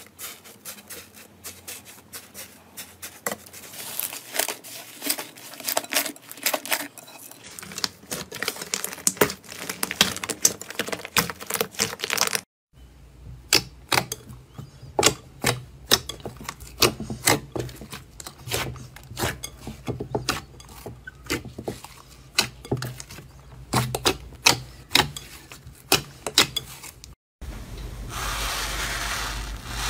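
Slime being squished and poked by hand, giving many sharp crackling clicks and pops. The sound cuts out twice, and near the end it changes to a steady fizzing hiss as slime is stirred with a stick.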